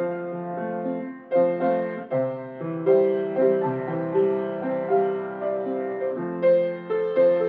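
Piano playing a slow postlude of held chords that change every second or so.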